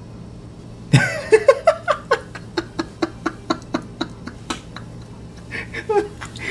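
A man laughing hard: a loud outburst about a second in, then quick rhythmic bursts of laughter, about four a second, that trail off after a few seconds.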